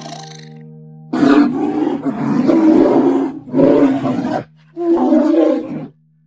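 A large animal roaring three times in harsh, throaty bursts, the first and longest lasting about two seconds.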